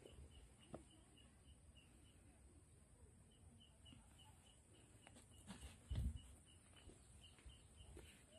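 Faint, evenly repeated short high chirps, about four a second, from a small animal calling. A few dull thumps are heard, the loudest about six seconds in.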